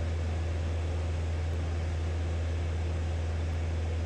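Steady engine and propeller drone inside the cabin of a Robin DR500 single-engine light aircraft in flight: a constant deep hum with an even hiss above it.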